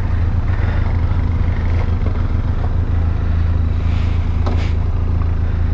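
Benelli TRK 502X motorcycle's parallel-twin engine running at a steady, unchanging pitch, with road and wind noise.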